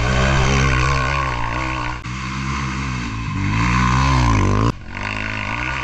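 Enduro motorcycle engine running and revving, its pitch rising and falling, with abrupt jumps in the sound about two seconds in and near five seconds.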